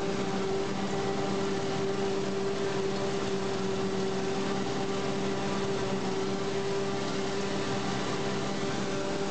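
Claas self-propelled forage harvester working through standing maize: a steady drone of engine and chopping machinery with a constant humming tone.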